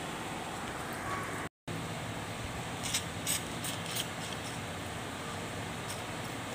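A few short bursts of WD-40 aerosol spray, three or four quick hisses within about a second, lubricating an air-conditioner blower motor bearing that had been making a catching noise. A steady low hiss runs underneath.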